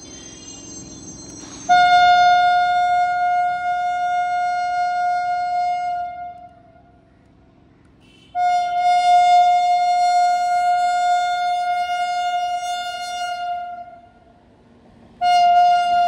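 WAP-7 electric locomotive's horn sounding three long, steady blasts as the train approaches, the first two about five seconds each with short pauses between, and the third starting near the end.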